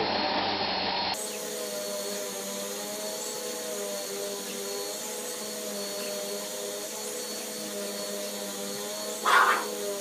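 Vacuum cleaner motor running with a steady hum, switching about a second in to an upright vacuum running steadily at a lower level. Near the end a pug gives one short bark.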